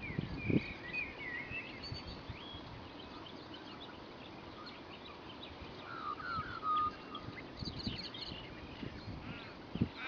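Wetland bird ambience: small birds chirping and twittering in short scattered phrases over a steady background hiss. There is a low thump about half a second in and another near the end.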